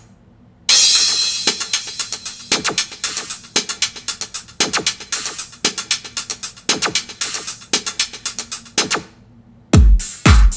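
Modern R&B instrumental beat played on a drum machine. It starts after a brief silence, runs as a steady rhythmic groove, drops out for a moment near the end, and comes back with heavy bass kick drums.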